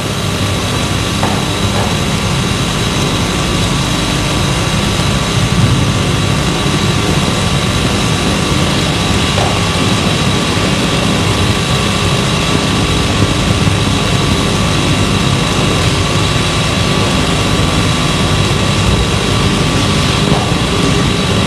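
Steady, loud hiss and low hum with faint steady whistling tones and no distinct events: the background noise of an old 1983 recording's soundtrack.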